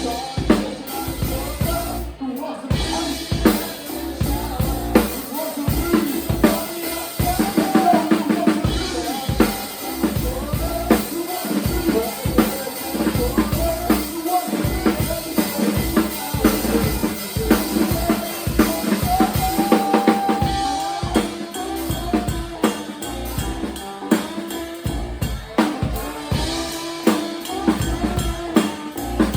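Live band playing an instrumental passage, the drum kit to the fore with a steady bass drum and snare beat under sustained pitched notes; the music drops out briefly about two seconds in.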